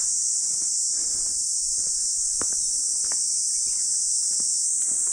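A chorus of cicadas in the trees, a steady, unbroken high-pitched buzz, with a few faint clicks about midway.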